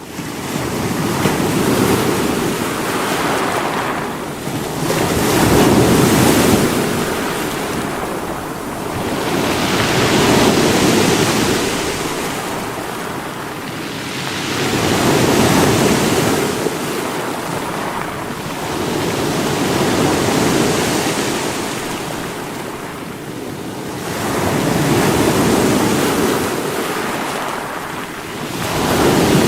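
Sea waves breaking against rocks, surging and easing in swells about every five seconds.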